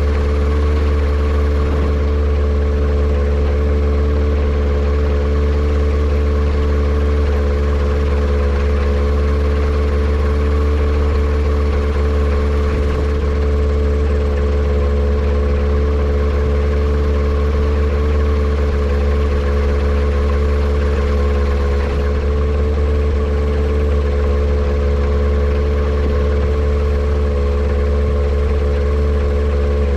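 Yamaha Apex four-cylinder four-stroke engine on a Kitfox airplane, running at a steady, even speed with its propeller turning. It is being run to chase a misfire that the owner suspects comes from a vacuum leak.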